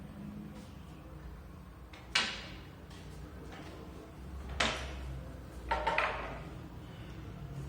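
Kitchen door knocking: sharp knocks about two seconds in and halfway through, then a quick double knock near six seconds, each with a short ringing tail, over a low steady hum.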